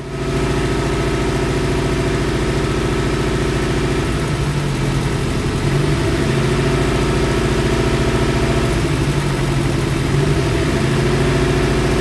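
Nissan twin-cam 16-valve four-cylinder engine idling out of balance, misfiring on cylinder one. Its running changes several times as ignition coils are unplugged and plugged back in one by one, while pulling the coil on cylinder one makes no difference, the sign that this cylinder is not firing.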